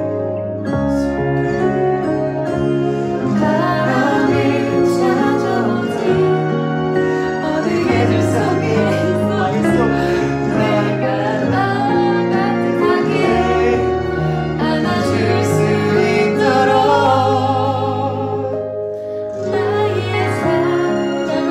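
A slow ballad backing track with a man and a woman singing a duet over it.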